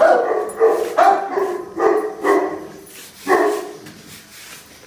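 Dog barking repeatedly: about six short, pitched barks, unevenly spaced, ending about three and a half seconds in.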